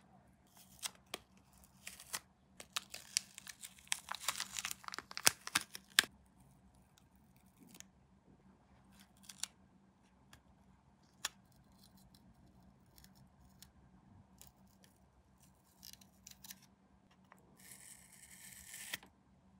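Hand work on a plastic scale model kit: a dense run of sharp snips and clicks for the first several seconds, then scattered single clicks, and a short rasping hiss near the end.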